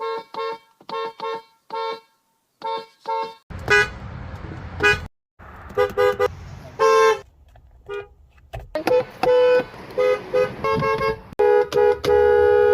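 Car horns from several different vehicles sounded one after another: strings of short toots, a few longer honks, and a longer held blast near the end, with road noise under some of them.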